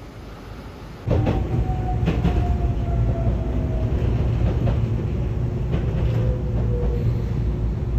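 A train running: a steady heavy rumble with clicks from the wheels and a whine that slowly falls in pitch. It starts suddenly about a second in.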